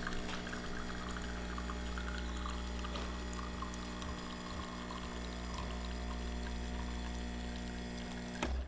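Ultima Cosa Presto Bollente espresso machine pulling a single shot: the pump hums steadily while espresso pours into the cup under pressure. Near the end the pump cuts off with a click and the sound drops away.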